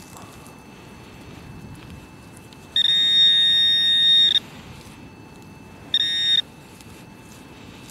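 Handheld metal-detecting pinpointer probe buzzing with a steady high electronic tone as its tip finds a metal target in the loose soil: one buzz of about a second and a half, then a short second buzz about a second later.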